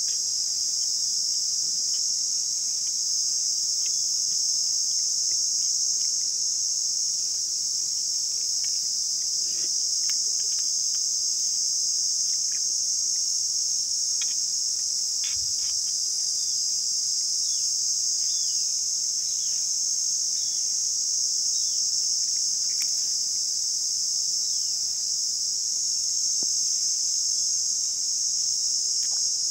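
Steady, high-pitched insect chorus, an unbroken shrill drone, with a few faint clicks and short falling chirps near the middle.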